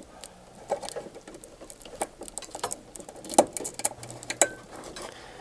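A wiring harness being handled and pressed into a plastic strain relief: rustling of wires and scattered small plastic clicks, the sharpest a little over three seconds in, with a brief squeak a little after four seconds.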